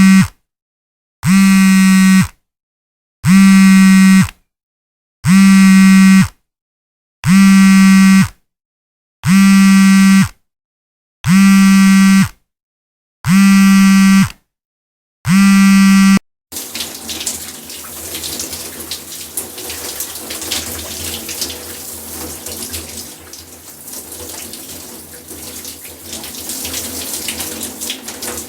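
A low, buzzy electronic tone sounds eight times, each beep about a second long and one every two seconds. About sixteen seconds in it gives way to a tap running water.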